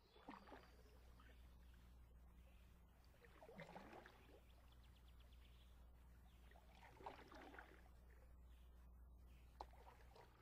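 Near silence: a faint steady low hum with four soft water-like splashes spaced a few seconds apart.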